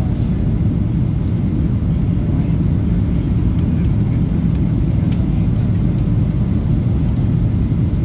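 Steady low rumble of an airliner's engines and airflow heard from inside the passenger cabin on approach for landing.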